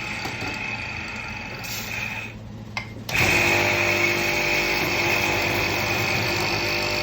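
Industrial electric coffee grinder running, grinding roasted beans, with a steady high whine. A little over two seconds in it stops for under a second with a click, then starts again louder and runs steadily.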